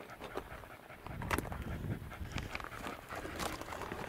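A dog panting in quick, uneven breaths, with a low rumble joining in about a second in.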